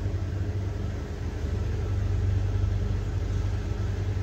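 Steady low hum and rumble of a running engine, a little louder from about two seconds in.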